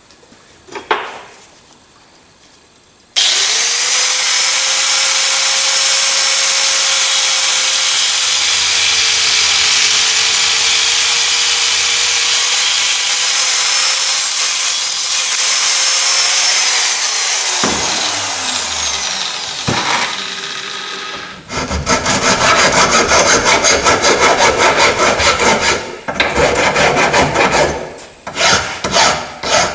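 A high-speed power cutting tool starts about three seconds in and runs with a steady whine while it cuts down a steel bolt, then winds down with a falling pitch. After it comes a run of quick rasping hand strokes on the metal.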